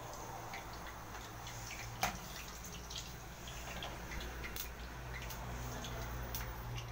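Potato fries deep-frying in a pot of hot oil: scattered crackles and pops of sizzling, with a single sharp knock about two seconds in.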